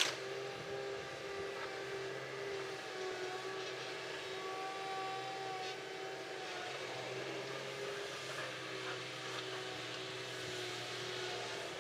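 Kobelco SK200 excavator running steadily, a diesel engine note with a steady whine over it held at a few pitches.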